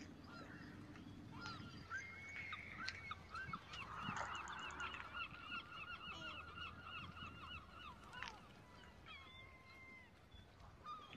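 A bird calling, faint: a fast, even run of short repeated notes for about six seconds, then a few longer drawn-out notes near the end.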